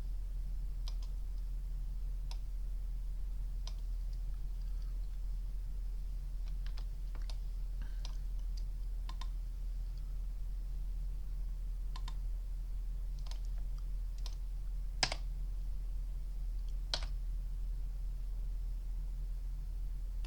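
Irregular, scattered clicks of a computer mouse and keyboard in use, about a dozen over the stretch, two sharper ones near the end, over a steady low electrical hum.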